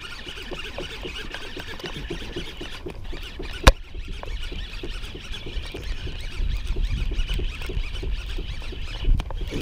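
Baitcasting reel cranking line in, a steady rattle of ticks about four a second, with one sharp click about a third of the way in.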